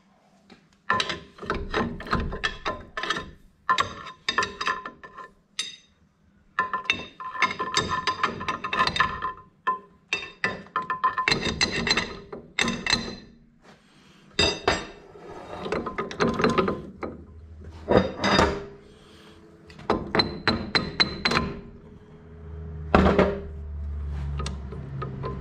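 Irregular hammer blows and clinks of metal on metal from work on a gearbox, many strikes leaving a short metallic ring. A low steady hum comes in near the end.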